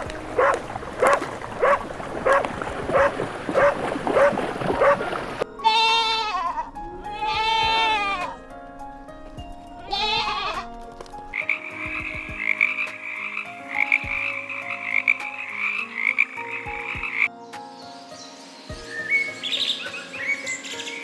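A sequence of animal calls over soft background music: a call repeated about twice a second for the first five seconds, then a few long calls that rise and fall in pitch, a steady high trill, and short chirps near the end.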